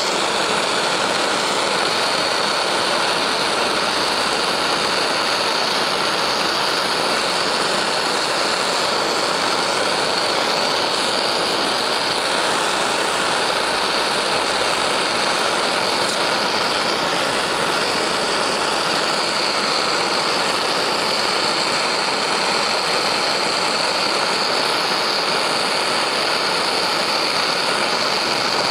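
Gas torch flame burning with a steady hiss, heating brass cartridge case necks to anneal them.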